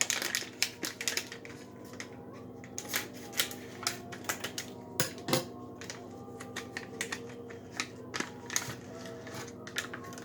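Ice cream sandwich wrapper being opened by hand: irregular crinkling and crackling, with a faint steady hum underneath.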